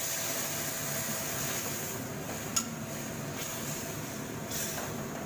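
Tomato slices and water cooking in a hot wok: a steady sizzling hiss, with one sharp clink of the metal ladle against the wok about halfway through.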